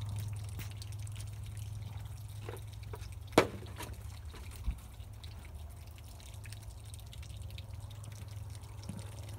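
Water trickling and dripping out of shot plastic water jugs as they are handled, with one sharp knock about three and a half seconds in and a duller thud about a second later.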